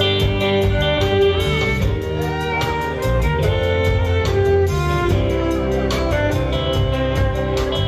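Live rock band playing: a violin carries the lead with sliding notes over electric guitars, bass guitar and drums with steady cymbal ticks.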